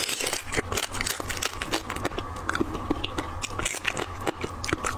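Close-miked eating of sauce-coated crab: biting and chewing into the crab legs and shell, with many quick, irregular cracks and crunches.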